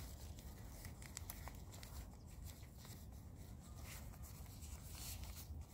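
Faint rustling and a few small clicks as hands handle a strawberry runner and press it into a small cup of soil, over a low steady rumble.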